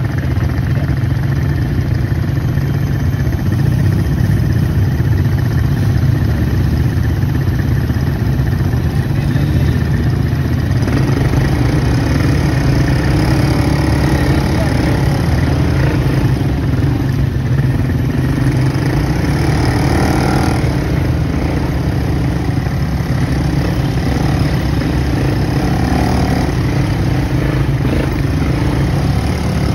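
ATV engines running steadily while riding along a dirt trail.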